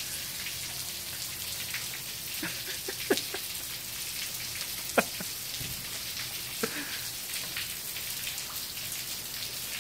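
Steady rain falling on standing water over a flooded yard, an even hiss, with a few sharp taps, the loudest about halfway through.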